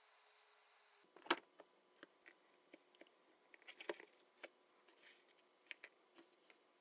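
Faint, scattered clicks and rustles of jumper wires being plugged into and pulled out of a solderless breadboard while an Arduino board is handled. The clearest click comes about a second in, with a cluster of clicks near four seconds.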